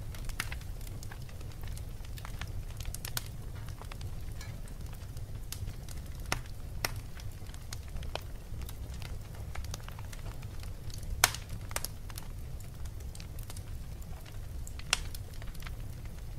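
Fire crackling: irregular snaps and pops over a steady low rumble, with a couple of louder pops in the second half.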